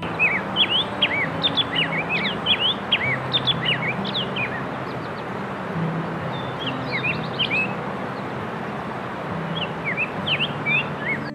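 Many small birds chirping, quick short overlapping chirps in busy flurries with brief lulls, over a steady background hiss.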